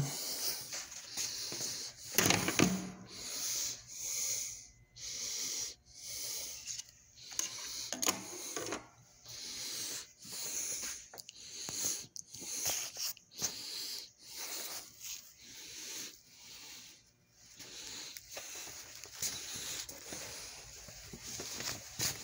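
A person breathing hard and fast, about one breath a second: out of breath after exertion and trying to catch it.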